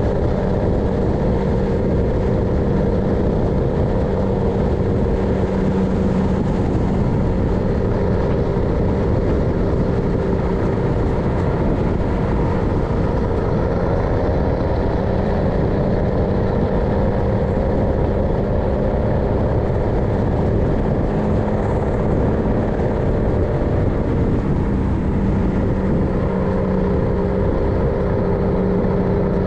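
MAN LE280B 4x4 truck driving, its diesel engine running at a steady speed with a constant drone over a rough low rumble.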